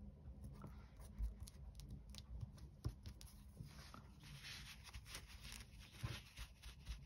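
Quiet paper-crafting handling: a paper sticker being pressed onto a card on a cutting mat, with scattered soft taps and clicks, and a stretch of rustling about four seconds in as it is rubbed down with a crumpled wad of paper.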